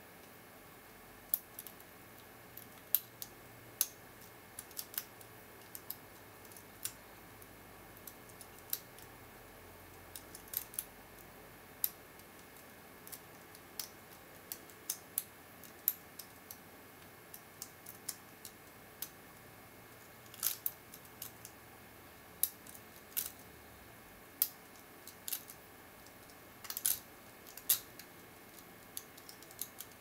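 Lock pick and tension wrench working the five pin stacks inside a 40 mm brass FTH Thirard Mach 3 padlock: small, sharp metallic clicks and ticks at uneven intervals, now and then several in quick succession.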